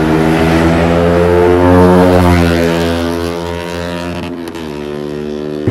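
Motorcycle engine running under way, its note climbing in pitch about two seconds in, then dropping and fading somewhat from about four seconds in.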